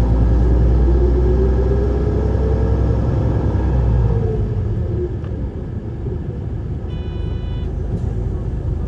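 Isuzu Erga diesel city bus heard from on board: the engine pulls with a whine rising in pitch, then eases off about four seconds in and the low rumble drops as the bus slows. A short electronic chime sounds near the end.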